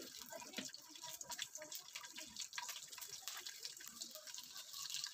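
Garlic cloves and cumin seeds sizzling faintly in hot oil in a pan, with a scatter of small irregular pops and crackles.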